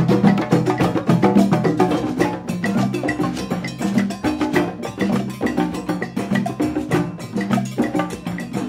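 A drum circle of congas, djembes and dunun drums playing a fast, dense groove together. Low drum tones run under many quick strokes, with a high ringing tick repeating through it.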